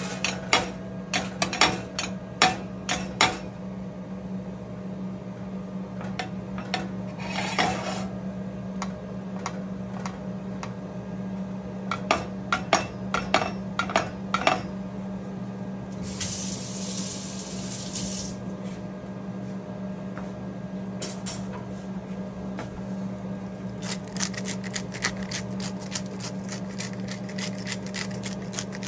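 Knife blade pressing into raw ground-beef patties and clicking against a white pan as it scores them in a crosshatch, in clusters of sharp taps that quicken near the end. A steady low hum runs underneath, and a hissing rush lasts about two seconds midway.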